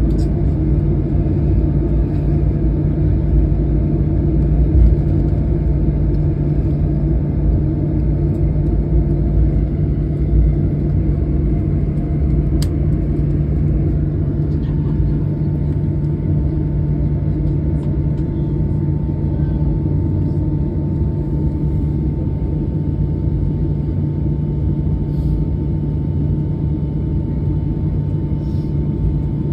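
Steady low rumble of a jet airliner heard from inside the cabin, with a faint steady tone joining about halfway through.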